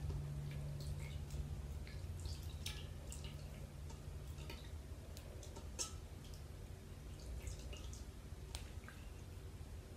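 Water dripping and splashing lightly in a bowl as wet, soapy hands are dipped and rubbed together, in scattered small drips and splashes.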